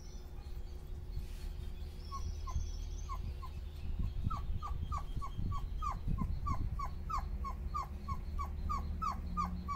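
Dobermann puppy whimpering in short squeaks that fall in pitch, about three a second, starting about two seconds in. Under it is the steady hum of an electric floor fan.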